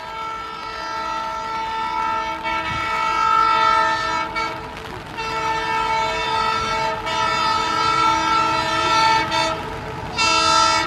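Indian diesel locomotive's multi-tone horn sounding three times: two long blasts of about four seconds each with a short gap between them, then a short blast near the end, over the low rumble of the approaching train.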